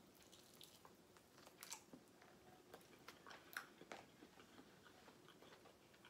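Faint chewing and biting with a few soft crunches, mouth sounds close to the microphone, a stronger crunch about three and a half seconds in.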